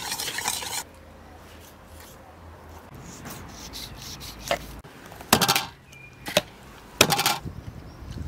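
Food-preparation sounds: stirring in a bowl that stops just under a second in, soft handling noises, then two loud rasping scrapes of a knife working on raw fish, about a second and a half apart.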